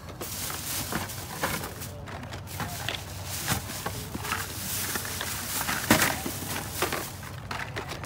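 Loose diecast toy cars clicking and rattling against each other as they are picked through by hand, with faint voices in the background.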